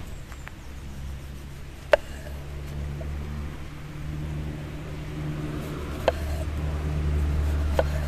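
Kitchen knife slicing through tomatoes and knocking on a wooden cutting board: three sharp, slightly ringing knocks spaced a few seconds apart. A low steady hum runs underneath.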